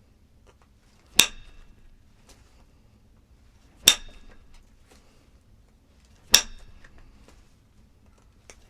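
Three sharp, ringing strikes on stone, about two and a half seconds apart, as in knapping a stone point.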